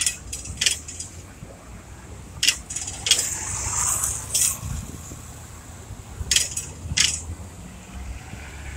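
Low rumble of cars passing close by, broken by about seven short, sharp, high clicks, mostly in pairs about half a second apart, which are the loudest sounds.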